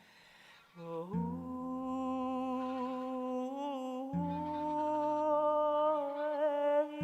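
A cappella voices humming a slow, held lullaby chord with slight wavering pitch, coming in about a second in. A low bass note swells in about every three seconds.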